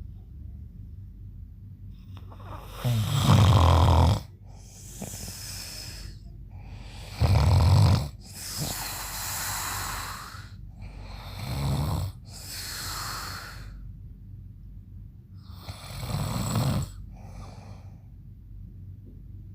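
A man snoring loudly in his sleep: four deep, rattling snores about four seconds apart, each followed by an airy, hissing breath.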